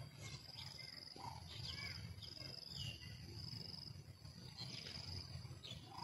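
A high-pitched insect trill, repeating in bursts of about half a second, with a few short bird chirps scattered through it over a low rumble.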